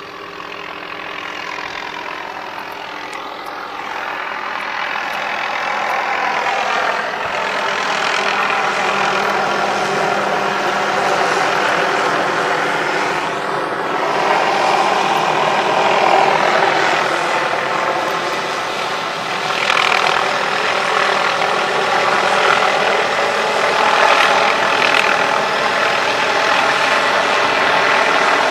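A steady, loud engine running, with a pitched hum that shifts slowly. It grows louder over the first several seconds, then holds level.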